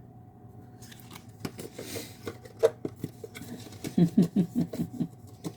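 Packaging being handled by hand: a run of light clicks, taps and rustles of card and plastic, starting about a second in and growing busier toward the end.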